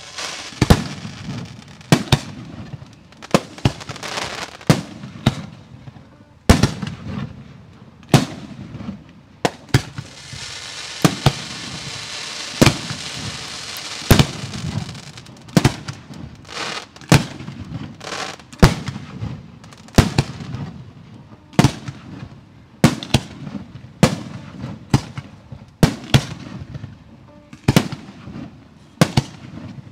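Professional 1.3G fireworks display: a steady run of loud, sharp bursts, about one a second, over a low rumble. A dense crackling hiss runs for about four seconds, starting about a third of the way in.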